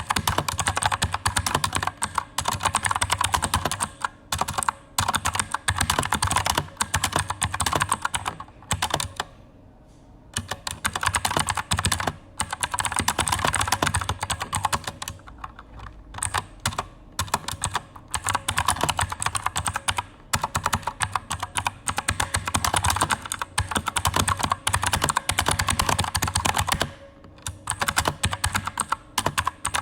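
Fast typing on an Aukey KM-G9 mechanical keyboard with Outemu Blue clicky switches, each keystroke a sharp click, in quick runs broken by short pauses.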